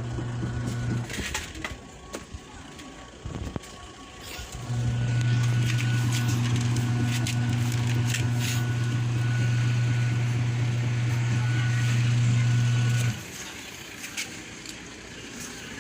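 Twin-tub washing machine's wash motor running with a steady hum. It stops about a second in, starts again a few seconds later, runs for about eight seconds and stops again. This is the wash timer's run–pause–run cycle, the tub now turning in reverse as well as forward. Light clicks and knocks fill the pauses.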